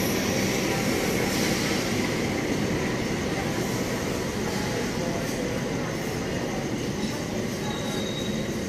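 Carriages of the Mutiara Selatan passenger train rolling past along the platform as it slows into the station: a steady rumble of steel wheels on the rails, with a faint high wheel squeal near the end.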